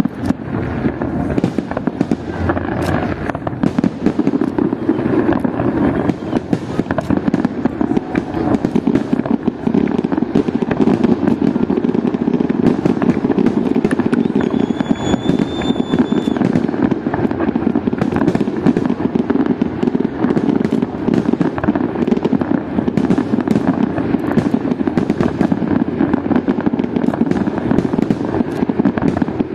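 Fireworks display: a dense, continuous barrage of shell bursts and crackling bangs with a heavy rumble underneath. A brief high whistle sounds about halfway through.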